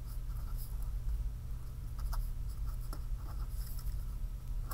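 A pen scratching across paper as words are written out stroke by stroke, over a steady low hum.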